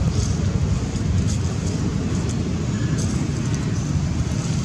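A steady low rumble with a constantly fluttering level and no clear pitch, with a few faint ticks and rustles above it.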